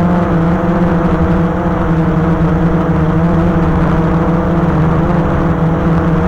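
Multirotor drone's motors and propellers running steadily in flight: a loud buzz with a strong low tone and higher overtones that wavers slightly in pitch.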